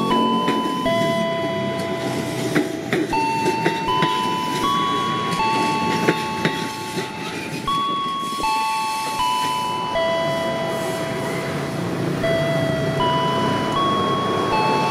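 Jabodetabek KRL electric commuter train rolling through a curve with wheel squeal: several high, steady squealing tones that jump in pitch at irregular moments over the rumble of the wheels, with a few sharp clicks from the rails.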